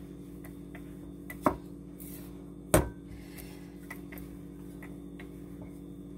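Wooden rolling pin rolling out shortcrust pastry dough on a floured countertop, with two sharp knocks about a second and a half and three seconds in, and light taps in between. A steady low hum runs underneath.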